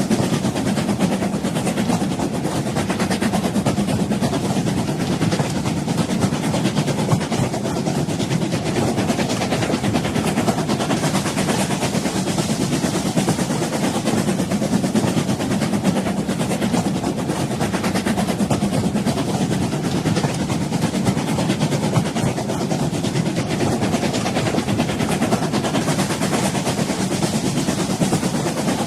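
An old train running: a steady rumble with hiss, unbroken and without a clear rhythm of rail joints.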